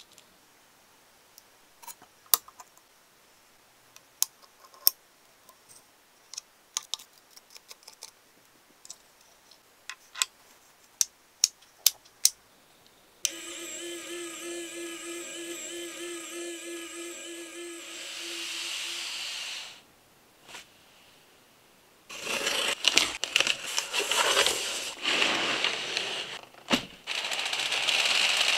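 Small metal parts clicking and tapping as a model piston and connecting rod are handled and fitted. About 13 seconds in, the assembled all-metal 5-cylinder radial engine model runs for about six seconds, a steady hum and whir from its small motor. From about 22 seconds, loud crinkling of plastic air-column packing around the kit box.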